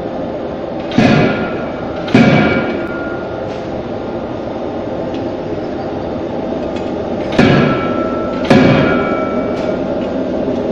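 Large industrial die-forging hammer striking hot steel in the die: two heavy blows about a second apart, then after a pause of about five seconds another two, each leaving a short metallic ring. A steady factory machinery drone runs underneath.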